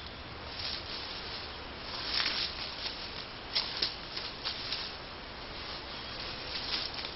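Rustling and crackling of leaves and brush as an animal moves through forest undergrowth, in irregular short bursts over a steady low hiss.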